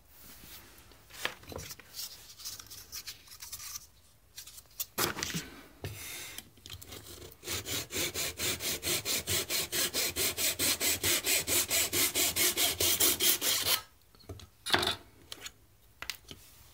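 Fine-toothed handsaw cutting across a wooden dowel held in a guide block: quick, even strokes about four a second for some six seconds, after a few seconds of irregular scraping and knocking. A couple of sharp knocks follow once the sawing stops.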